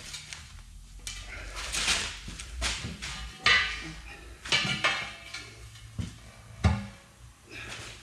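Steel tire-changing tools clanking and scraping against a steel truck wheel rim: about half a dozen sharp, ringing metal knocks spread over several seconds, over a low hum.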